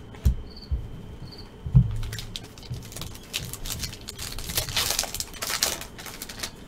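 A foil trading card pack (2020 Panini Mosaic Football hobby) being torn open and its cards handled: crinkling wrapper and rapid card clicks and flicks, with a few soft knocks in the first two seconds.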